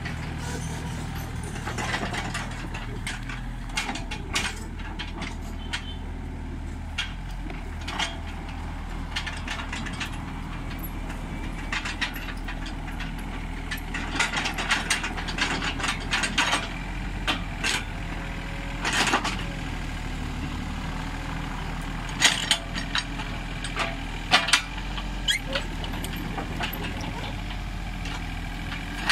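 Komatsu PC30 mini excavator's diesel engine running steadily as it digs, with frequent sharp clanks and scrapes of the bucket and its linkage working the soil, bunched in the middle and near the end.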